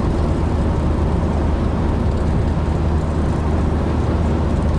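Steady road and engine drone heard inside the cabin of a VW campervan cruising on the motorway, a constant low hum under a broad rush of tyre and wind noise.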